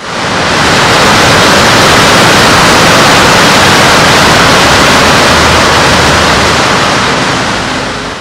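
Loud, even rush of falling water from a large waterfall. It swells in at the start and fades out near the end.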